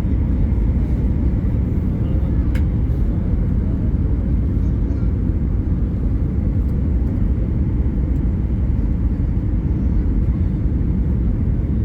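Steady low rumble of an airliner's cabin on approach to landing: engine and airflow noise, with a single brief click about two and a half seconds in.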